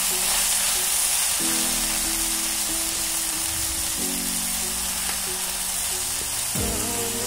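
Prawns and chopped onions sizzling as they fry in a steel kadai, over background music of long held notes that change every couple of seconds.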